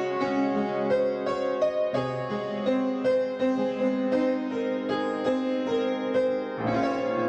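Background music: a keyboard piece with a steady pulse of struck notes, plucked-sounding like a harpsichord or piano.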